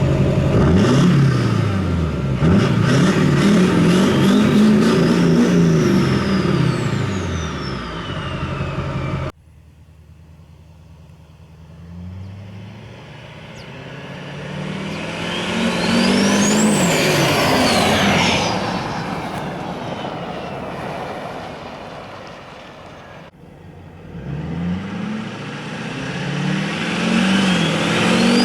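Twin-turbo Duramax V8 diesel with a 5-inch straight-pipe exhaust revving up and down repeatedly, with a high turbo whistle rising and falling over the engine. After a sudden cut the truck builds up close, its whistle climbing and dropping, then fades and comes back again near the end.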